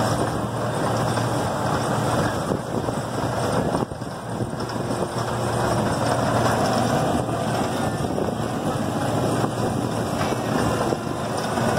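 C.P. Huntington miniature train running along its track, a steady engine hum and running noise heard from an open passenger car, dipping briefly about four seconds in.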